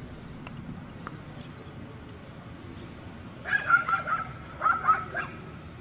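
Dogs of a free-roaming pack barking and yelping, in two short bouts of sharp calls a little past halfway through.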